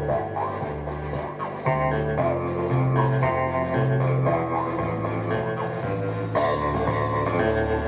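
Rock background music with guitar, bass guitar and drums.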